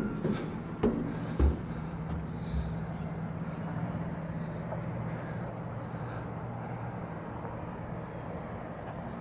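Footsteps on a steel diamond-plate landing, three knocks in the first second and a half, then a steady low hum.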